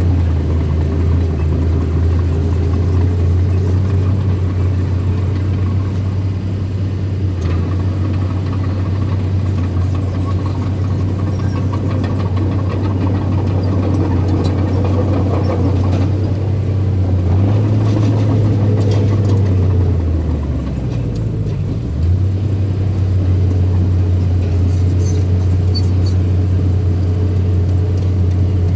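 Small bulldozer's diesel engine running steadily. Its note sags for a couple of seconds about two-thirds of the way through, then picks back up.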